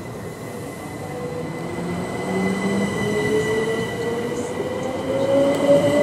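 Southern Class 377 Electrostar electric multiple unit pulling away, its electric traction motors whining in a pitch that climbs steadily as the train accelerates, over a steady high tone. The sound grows louder as the carriages pass.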